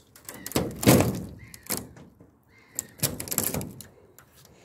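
Two loud bursts of rustling and scraping about two seconds apart, with a few short knocks between them.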